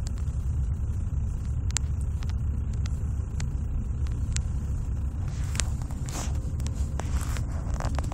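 VW 12-valve VR6 six-cylinder engine idling roughly with a misfire, the running uneven and shaking; the uploader's scanner logs misfires on cylinders 2, 3 and 6 despite new coil pack, plugs and wires. Light ticks are scattered through it, with a few short scraping noises in the second half.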